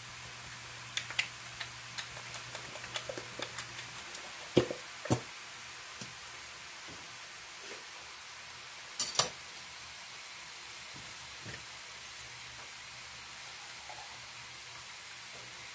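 Clicks and knocks of a utensil and metal cans against a stainless-steel mixing bowl as canned soup is scraped into it. There are scattered small taps, a few louder knocks about five seconds in, and two sharp knocks in quick succession about nine seconds in.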